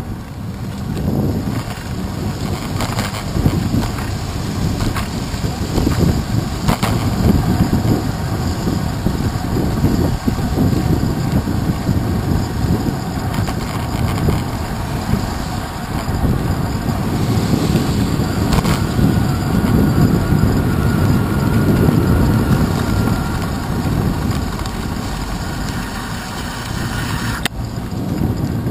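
Wind rushing over a handlebar-mounted camera and bicycle tyres hissing on wet pavement, with car traffic around. A few sharp knocks come through the mount.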